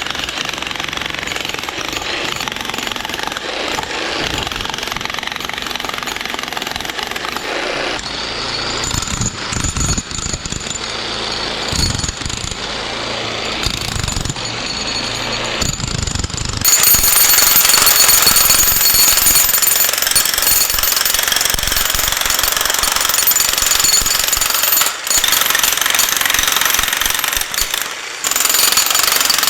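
A 35-pound demolition hammer chiseling and breaking up concrete: a continuous rapid hammering that gets louder about halfway through and drops out briefly twice near the end.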